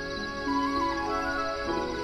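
Ambient background music of slow, held notes, several sounding at once and changing gently.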